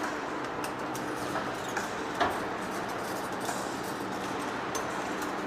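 Heavy lathe running with a large rough forged steel shaft turning in it: a steady machine hum with scattered light clicks and one sharper knock about two seconds in.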